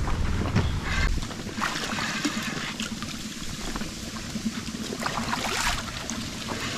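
River water splashing and trickling in the shallows around a hooked catfish being landed by hand, with many small irregular splashes.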